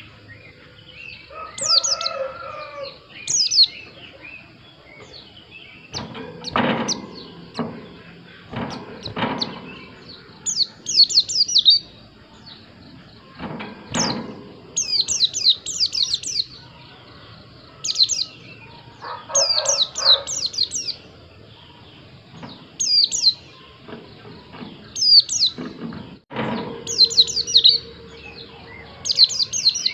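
White-eye (pleci) singing: repeated short bursts of rapid, very high twittering notes, with a few lower calls and several sharp knocks between the phrases.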